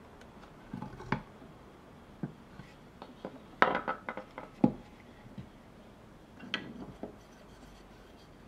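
Wood-carving tools and wood handled on a hard work surface: scattered clicks and light knocks, with a quick run of sharper taps about four seconds in and a few more a couple of seconds later.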